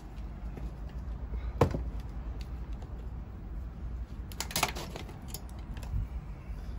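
Handling clicks and knocks from multimeter and test leads being picked up and moved: one sharp click about a quarter of the way in and a short cluster of clicks past the middle, over a low steady hum.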